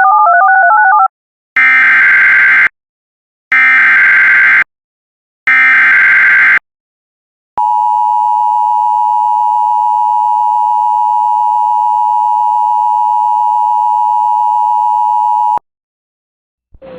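Emergency Alert System alert opening: a short warbling tone, then three buzzing bursts of SAME header data about a second each, then the steady two-tone EAS attention signal held for about eight seconds and cut off abruptly.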